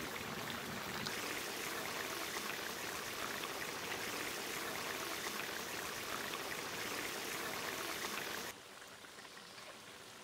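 Ridge gourd and carp fish curry boiling in an open aluminium wok, a dense bubbling and spitting hiss. It turns noticeably quieter about eight and a half seconds in.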